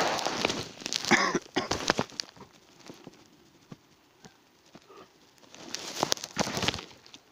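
Rustling, scraping and knocking handling noise from a helmet-mounted action camera as the helmet is taken off. There are two spells of it with a quiet gap of about three seconds between.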